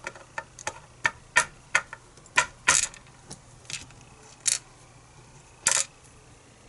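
Small metal lock parts clicking and tapping as a pin-tumbler lock is taken apart, about a dozen sharp irregular clicks.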